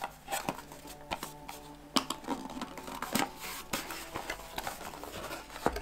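A small cardboard box being opened by hand: flaps and card scraping, rustling and tapping in a string of irregular sharp clicks.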